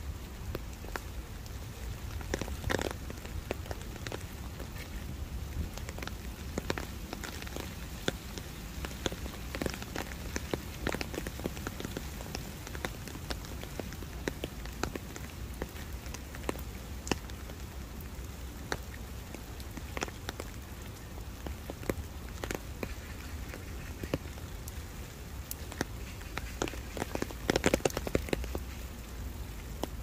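Rain pattering on an umbrella: a steady hiss of rain with many sharp individual drop taps, and a brief flurry of louder, heavier drops near the end.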